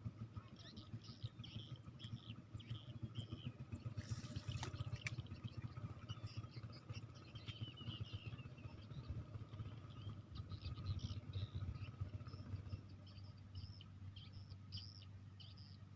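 Small birds chirping and calling again and again over a low steady rumble, with a brief rustle about four seconds in.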